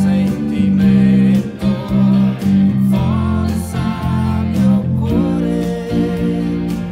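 Electric bass guitar played with the fingers, a walking line of low sustained notes, over a band recording of the song with singing.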